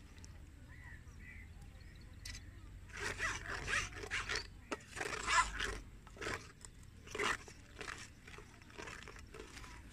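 Steel spoon stirring and scraping through wet fruit pulp in a steel bowl: a run of irregular scrapes and clinks starting about three seconds in and lasting a few seconds.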